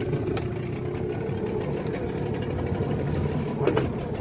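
Outrigger fishing boat's engine idling steadily.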